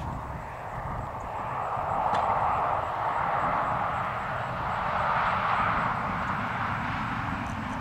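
Distant engine drone, steady and without a clear pitch, swelling about two seconds in and again about five seconds in.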